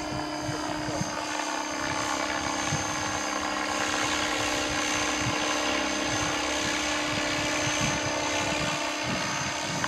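Radio-controlled model helicopter flying overhead: a steady whine of its motor and rotor at an unchanging pitch, growing slightly louder.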